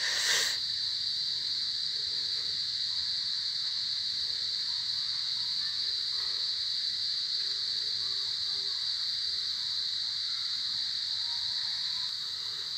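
Crickets chirring in one steady, unbroken high-pitched drone, with a brief rustle at the very start.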